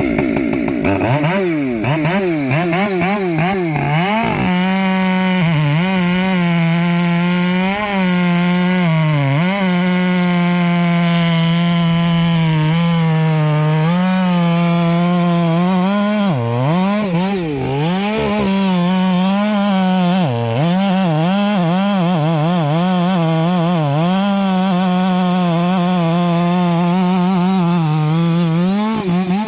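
Husqvarna 564xp 60cc two-stroke chainsaw with a 32-inch bar, cutting wood at full throttle on a freshly touched-up chain. Its high engine note holds steady, dipping and climbing back a few times as the saw is eased off and pushed back in.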